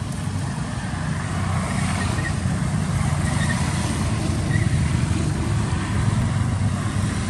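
Motorbike traffic passing on a nearby road: a steady engine rumble that grows louder about a second in and eases near the end.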